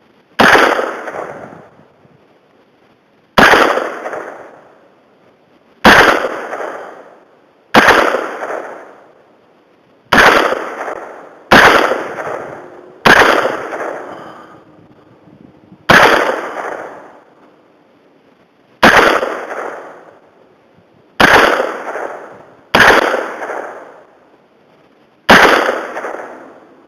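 Smith & Wesson M&P-15 AR-15 rifle fired semi-automatically: twelve single shots at an unhurried, uneven pace of one every one and a half to three seconds, each shot trailing off in an echo that lasts about a second and a half.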